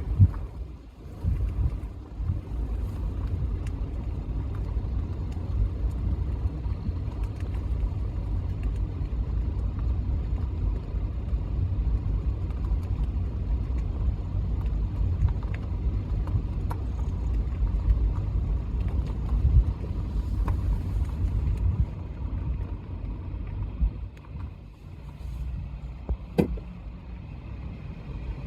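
Steady low vehicle rumble, with a single sharp knock near the end.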